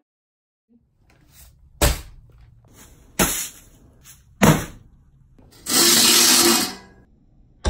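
Bagged sand, plaster and concrete mix dropped one at a time on a concrete floor: three thuds about a second and a half apart. Then a longer scraping rush of about a second as a galvanized metal bucket is set in place.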